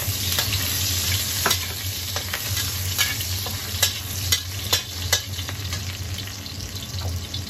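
Diced beef sizzling in hot oil in a wok, stirred with a steel ladle that scrapes and clicks against the pan every so often.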